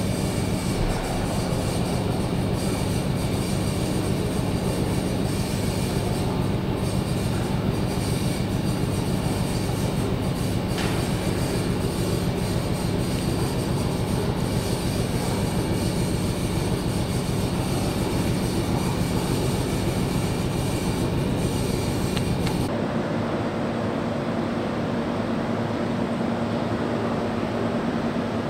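Steady mechanical running noise of machinery in an engine hall, a fast even beat over a low hum. About 23 s in it cuts abruptly to a smoother, duller hum.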